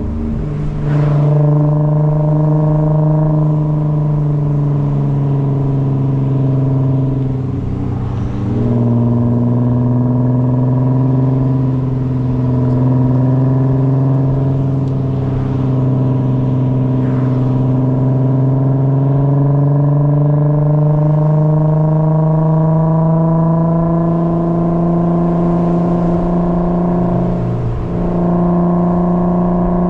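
Car engine pulling steadily while driving, its note slowly rising and falling with road speed. The note breaks and steps to a new pitch about 8 seconds in and again near the end, as at gear changes.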